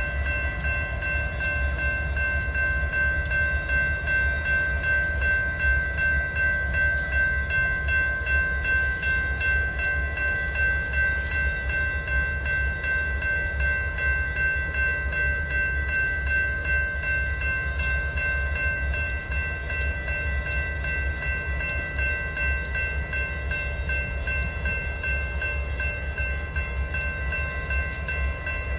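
Train running by, with a deep steady rumble and a constant high-pitched whine of several tones held throughout.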